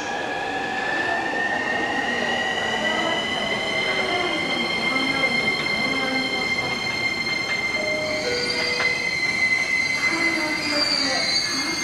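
E233-series electric commuter train pulling out of the station, with a loud, high-pitched whine that rises slightly in pitch over the first few seconds and then holds steady over the running rumble.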